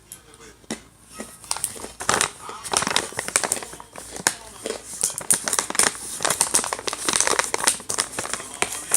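Snack bag crinkling and rustling as it is handled and opened, a dense crackle that starts about a second in and keeps going.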